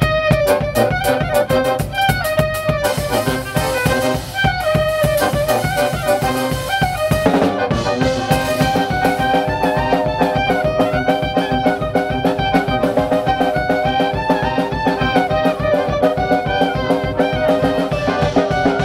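Live band music: sousaphone, violin, accordion, brass horns and drum kit playing an up-tempo tune over a steady beat.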